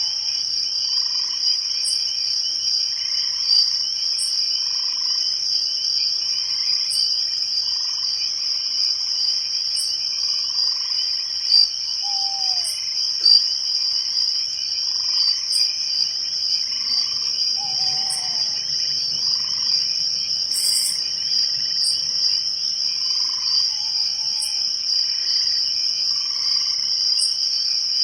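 Night-time forest chorus of insects and frogs: a steady, loud, high-pitched insect trill, with soft frog calls repeating every couple of seconds, sharp high ticks at a regular pace, and a couple of short falling calls near the middle.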